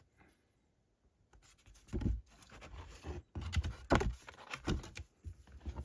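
Hand-handling noises: fingers picking and rubbing at a glue dot on a collector's box set, starting about two seconds in as a run of soft scrapes and low knocks.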